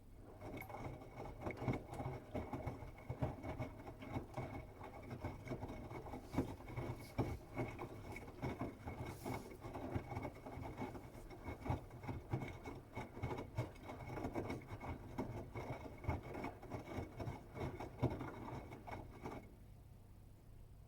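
Bosch Serie 8 WAW32590 front-loading washing machine turning its drum during the wash, with a steady motor whine and wet laundry tumbling in irregular soft thumps. The drum starts about half a second in and stops shortly before the end, the usual turn-and-pause rhythm of the wash phase.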